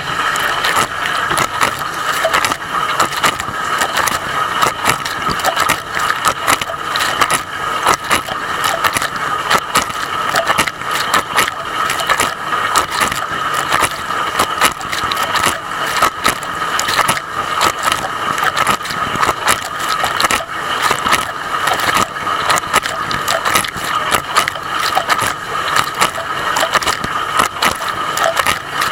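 Dishwasher wash cycle recorded from inside the tub: water from the spray arms hammers against the action camera's waterproof case in a dense, continuous spatter, over a steady whine. It starts suddenly.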